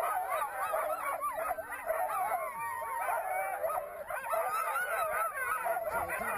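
A chorus of many sled dogs yelping and howling at once, their high, overlapping calls running on without a break.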